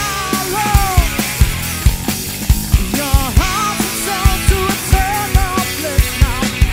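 Rock band playing live: a drum kit keeping a steady beat with regular kick-drum hits under an electric guitar lead line of bending, sliding notes.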